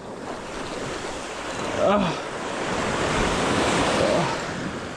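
Sea surf surging and washing over rocks, with wind buffeting the microphone; the wash swells louder a little past the middle. A short falling voice sound cuts through about two seconds in.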